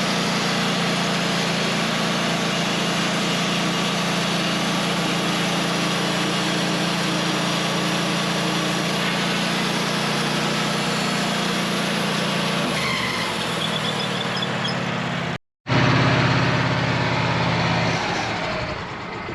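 Portable sawmill engine running steadily; its pitch shifts about two-thirds of the way through. After a sudden brief dropout it comes back louder, then dies away near the end.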